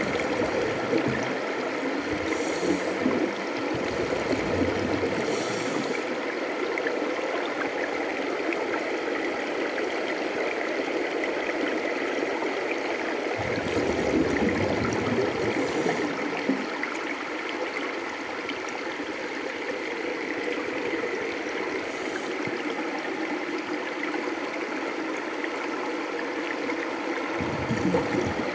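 Underwater ambience recorded on a scuba dive: a steady rushing water noise, with low gurgling swells of exhaled regulator bubbles near the start, about halfway through and at the end.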